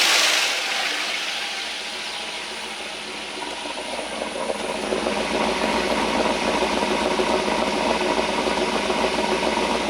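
2009 Chevy Tahoe's 5.3-litre LS V8, fitted with a stage 2 cam and a DOD delete, idling while it warms up from a cold start; it gets louder a few seconds in. It does not sound bad, with no lifter tick evident yet. A hiss dies away in the first second.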